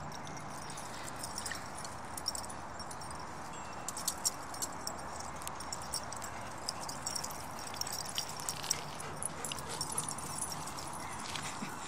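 Dogs romping together on dirt and grass: scattered light scuffs and footfalls, more of them from about four seconds in, over a steady outdoor hiss.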